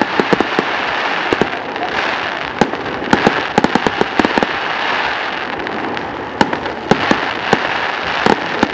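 Fireworks display going off: many sharp bangs and pops in irregular clusters over a steady rushing noise.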